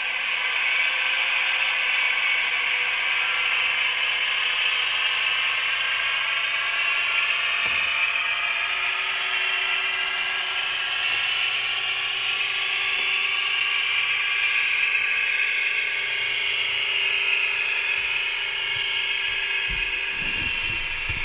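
A model train's electric motor and gearing whirring steadily as a model diesel multiple unit runs along the track, with a low knock near the end.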